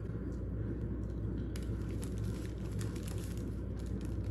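Newspaper-print deli paper lining a plastic serving basket crinkling under the hands, a run of light crackles in the middle, over a steady low hum.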